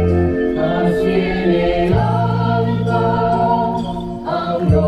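An Argentine patriotic song for the flag, sung by a choir with instrumental backing and played over a loudspeaker, accompanying a flag raising.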